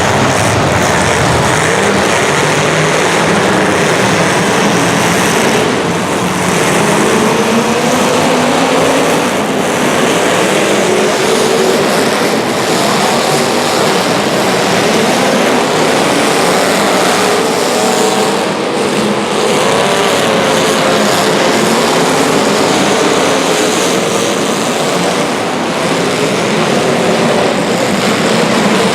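Several racing engines running together during a race heat, their pitches rising and falling as they rev and ease off.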